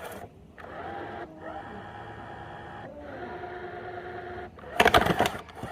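A small electric motor whirs in three stretches split by short pauses, its pitch gliding up as each stretch starts. About five seconds in comes a burst of loud clattering knocks.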